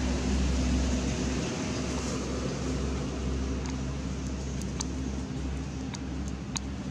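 Steady low hum under a rushing background noise, with a few brief, thin high chirps or clicks in the second half.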